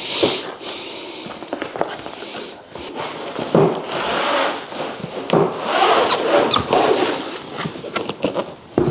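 Cardboard shipping box being opened by hand: flaps scraping and cardboard rubbing and crackling as a hard plastic gun case is slid out of it. The handling noise is irregular and gets busier from about three and a half seconds in.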